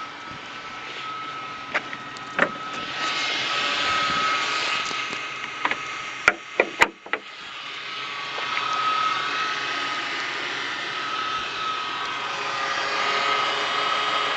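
Car engine running with a steady high whine, the running noise swelling and easing as the revs jump, which the owner suspects comes from a bad power steering pump. A few sharp clicks cut in, in a quick cluster near the middle.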